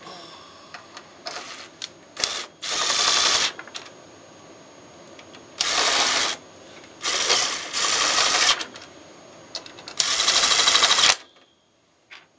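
Cordless drill running in about five short bursts, each half a second to a second long, driving screws into a wooden frame support. The last run is the longest and stops suddenly.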